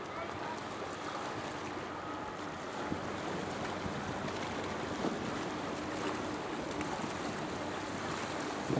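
Wind on the microphone and harbour water washing against a stone embankment, with the faint steady hum of a small fishing boat's engine passing.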